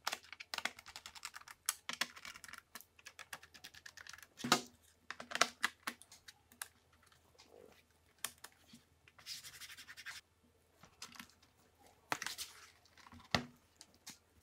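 Irregular light plastic clicks and taps as a Monster laptop's bottom cover is pressed down by hand and its edge clips snap into place, with a louder knock about four and a half seconds in and a couple more near the end as the laptop is handled.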